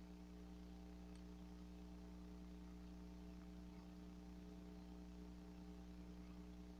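Near silence: a steady low electrical hum with faint hiss.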